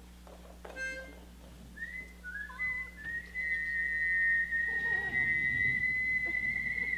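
Two men whistling into microphones as they tune up: a few short sliding whistles, then from about three seconds in one long held high note, the two whistles at slightly different pitches as they find each other's note.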